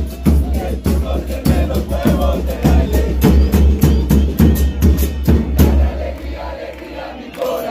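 Supporters' bass drums beating a steady rhythm, about three beats a second, under a crowd of fans chanting; the drums stop about six seconds in, leaving the chant.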